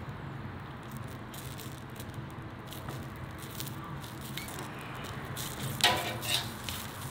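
Sausages in natural casings sizzling and crackling on a grill grate, with many small pops as the casings split. A few louder sharp knocks near the end.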